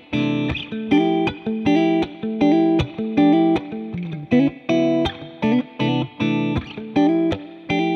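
Background music: guitar-led track with plucked chords struck in a steady rhythm.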